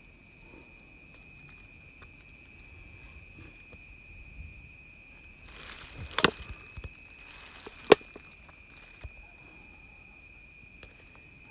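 A steady, high-pitched insect trill, like a cricket, runs throughout. Twice past the middle there is a spell of rustling, each with a sharp knock, from the phone being handled and moved.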